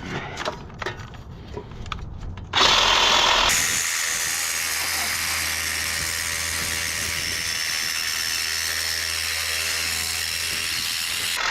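Handheld power tool working on scrap HVAC blower metal: faint handling clicks, then a loud burst about two and a half seconds in, followed by a steady run of about eight seconds that stops at the end.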